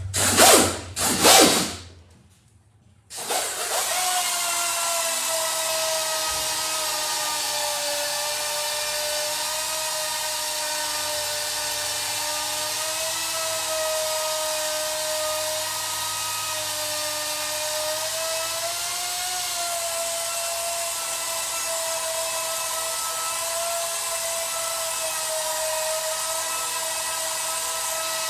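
Air-powered polisher with a foam pad running steadily on a sanded clear-coated fender, cutting out the fine sanding marks. It starts with a whine and hiss about three seconds in, the pitch dipping and rising slightly as it is pressed. Just before it starts there are two short, loud hissing bursts.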